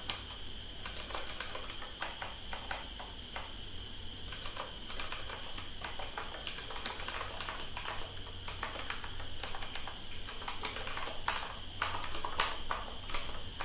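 Typing on a computer keyboard: irregular runs of clicking keystrokes, over a steady faint high-pitched whine and low hum.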